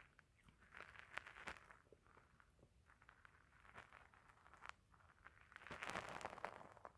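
Faint stomach gurgling during digestion after eating: irregular bubbly crackles and small pops, swelling louder for about a second near the end.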